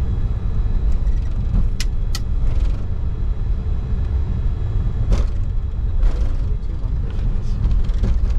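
Steady low rumble inside the cockpit of a Bombardier Challenger 605 taxiing, from its idling turbofans and its wheels rolling on the taxiway. A few short sharp knocks cut through it: two close together about two seconds in, and one about five seconds in.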